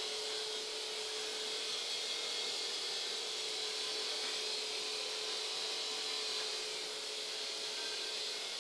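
Steady hiss with a faint steady hum underneath, unbroken throughout.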